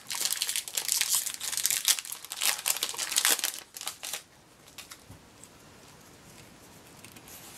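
Foil Pokémon TCG booster pack wrapper crinkling loudly as it is torn open and the cards are pulled out; the crinkling stops about four seconds in.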